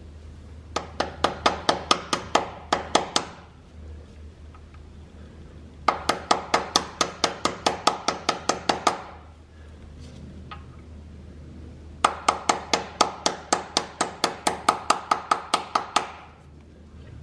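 Hammer gently tapping a spigot (pilot) bearing into the end of the crankshaft, in three runs of quick, light metallic taps, about four a second, with short pauses between runs.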